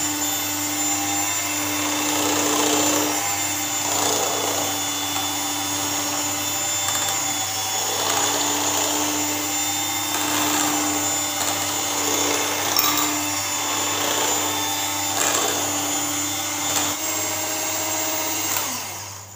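Electric hand beater running steadily as it whips the ice-cream base of cream, mango and condensed milk, its sound swelling and easing every second or two as it moves through the bowl. The motor winds down and stops near the end.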